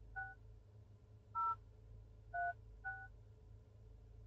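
Phone dial pad of a Proton X70's touchscreen head unit playing DTMF key tones as a hidden service code is keyed in: four short two-note beeps, the first two about a second apart and the last two half a second apart.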